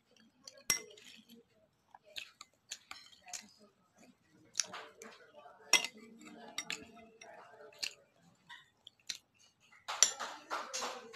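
A metal fork clinking against a dish now and then while eating, a scatter of sharp separate clicks.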